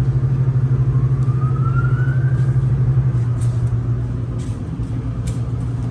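Automatic tunnel car wash machinery running: a steady, low, pulsing hum from the motors and spinning brushes, with a faint rising whine about a second in and scattered light clicks in the second half.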